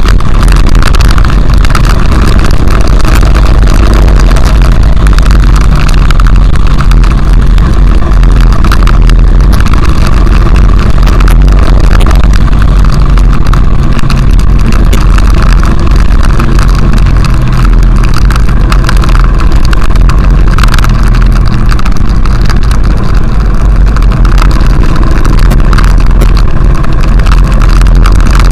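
Honda XRV750 Africa Twin's V-twin engine running steadily at riding speed, with heavy wind rumble on the microphone, loud throughout.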